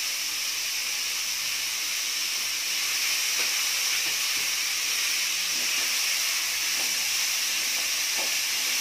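Chopped onions sizzling in hot oil in an aluminium kadai, a steady hiss, with a few faint scrapes of the wooden spatula stirring them as they sauté.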